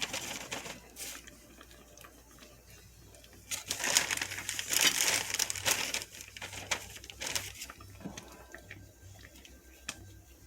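Pieces of floured canned-biscuit dough being dropped into simmering broth in a deep skillet: irregular clusters of soft splashes and plops over the bubbling of the simmer.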